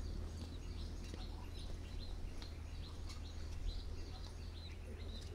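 Small birds chirping, short calls repeating about twice a second, over a steady low outdoor rumble.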